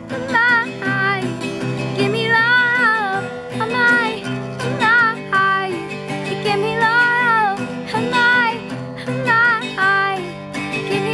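A young girl's voice singing a pop melody, with held notes that waver, to a strummed acoustic guitar.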